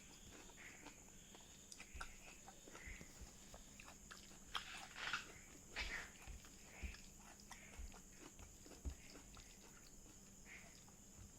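Faint, irregular chewing and wet mouth clicks from a person eating cow skin cooked with perilla seeds.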